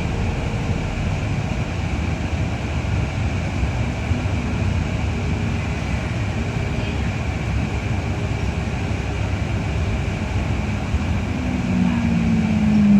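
Cabin noise of a New Routemaster hybrid double-decker bus on the move: a steady low rumble with a constant high whine. Near the end, a low tone grows louder and slides down in pitch.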